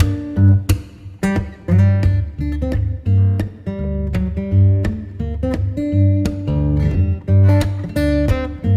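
Background music: acoustic guitar, plucked and strummed notes over a bass line in a steady rhythm.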